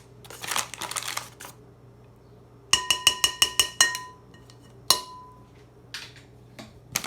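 A utensil tapped rapidly against the rim of a ringing kitchen bowl, about eight quick clinks in just over a second and then one more, knocking arrowroot powder out over the fries. Soft rustling as the powder is sprinkled comes before and after.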